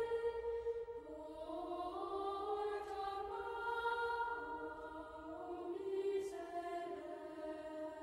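Slow, quiet instrumental music of long held chords that move to new notes every second or two.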